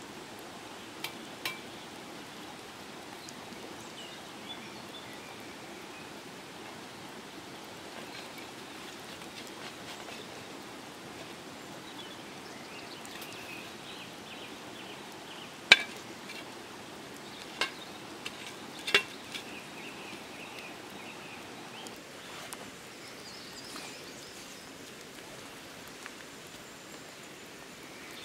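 Steady patter of rainwater dripping from the trees after a downpour. A few sharp clicks are heard, two about a second in, the loudest near the middle, and a quick cluster a few seconds after it.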